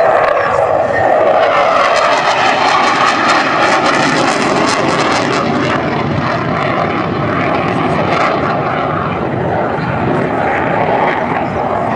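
Saab JAS 39 Gripen fighter's Volvo RM12 afterburning turbofan in flight during a display: a loud, continuous jet rush with faint tones sliding in pitch as the aircraft manoeuvres, easing slightly toward the end.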